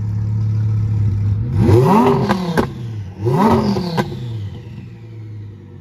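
Car engine idling, then blipped twice about a second and a half apart, the revs rising and falling each time, with a few sharp cracks from the exhaust as the revs drop.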